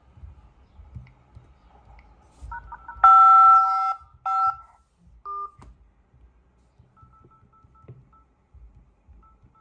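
Phone keypad touch tones. About three seconds in a loud two-tone dial tone for the "5" key sounds for about a second, a shorter one follows, then there is a brief beep. From about seven seconds, faint short key beeps sound as digits are tapped into a dialer.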